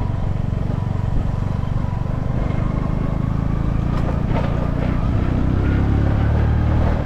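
Small motorcycle engine running steadily as the bike rides along a sandy dirt track, with a low rumble that grows a little louder about five seconds in.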